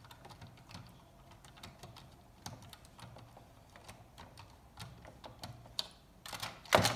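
Small clicks and taps of a screwdriver and screws being worked out of the plastic jetpack of a Buzz Lightyear action figure, with a louder clatter of clicks near the end.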